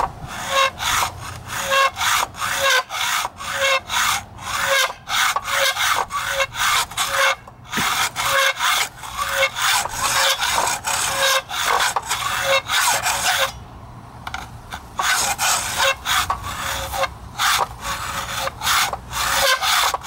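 Hacksaw cutting through the sheet-metal shell of a scooter muffler: steady back-and-forth rasping strokes at about two a second, with a brief pause about two-thirds of the way through.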